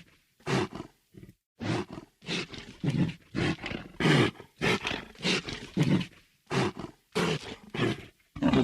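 Monster-like creature breathing heavily: a rapid run of short, growling, raspy breaths, about two a second, with brief pauses between some of them.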